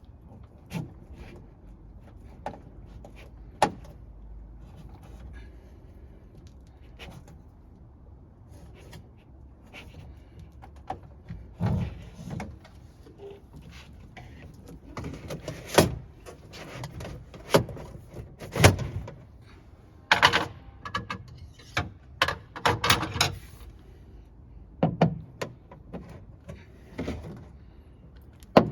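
Irregular knocks, clunks and rattles of a refrigerator being handled and worked on. They are sparse at first and then come in clusters, with a low hum underneath.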